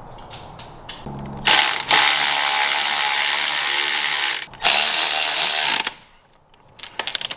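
Cordless electric ratchet driving bolts on the AC compressor mount in two long runs, a motor whine over a dense mechanical rattle. A quick string of clicks follows near the end.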